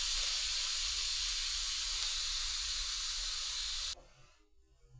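Instant Pot Ultra pressure cooker venting steam through its release valve in a steady, loud hiss: the pressure being let out by hand after cooking. The hiss stops abruptly about four seconds in.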